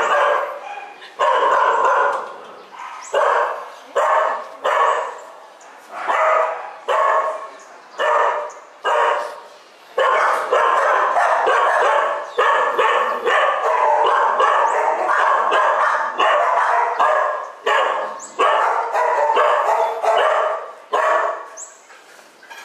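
Dogs barking in a shelter kennel. At first the barks come about once a second, then for several seconds in the middle they overlap almost without a break, then they thin out again.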